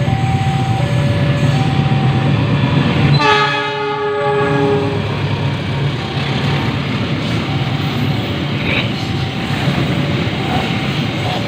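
A diesel train passes with a steady low rumble, and its horn blows once for about a second and a half, about three seconds in, the pitch dipping slightly. Throughout, a railway level-crossing alarm alternates between two tones.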